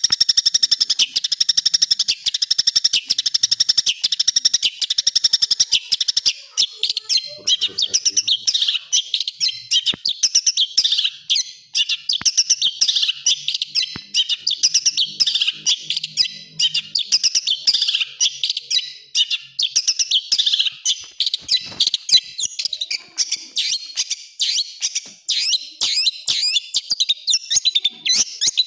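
Long-tailed shrike singing at full pace: a fast, even rattle of harsh rapid-fire notes, breaking about six seconds in into varied, dense chattering phrases.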